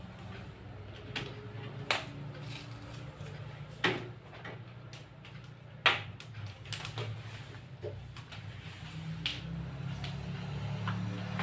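A few sharp clicks and knocks, the three loudest about two seconds apart, over a steady low hum.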